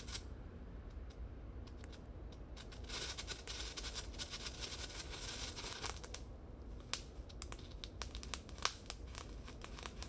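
Strobe-flash firework burning: sharp, irregular pops and crackles, with a steady high fizzing hiss for about three seconds in the middle.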